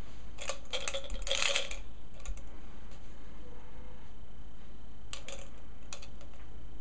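Plastic markers being handled in and against a plastic cup: light clicks and clatter, one cluster about half a second to two seconds in and another about five to six seconds in.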